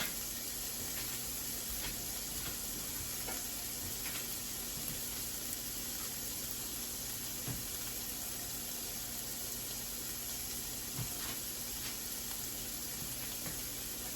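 Sweet onion and ginger frying in hot olive oil in a pan, a steady sizzle with occasional faint pops.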